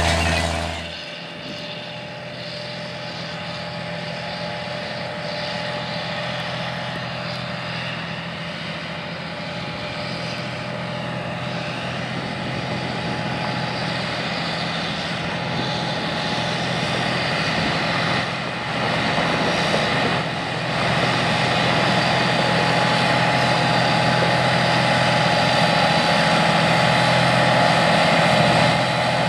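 John Deere row-crop tractor's diesel engine running steadily while pulling a corn planter, growing gradually louder as the rig approaches, with two brief dips about two-thirds of the way through.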